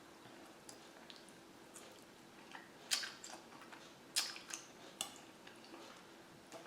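Faint wet mouth clicks and smacks of someone chewing pasta, with a few sharper ones about three, four and five seconds in, over a faint steady hum.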